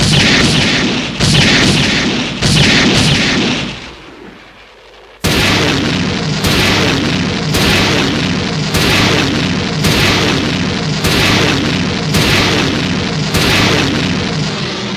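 Kiryu (MFS-3 Type 3 Mechagodzilla) film sound effect: heavy blasts repeating about once every second and a bit. Three blasts, a short pause of about a second, then eight more, the last fading out near the end.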